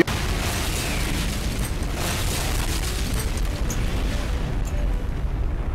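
Explosion sound effect: a sudden blast at the start, then a long steady rumble.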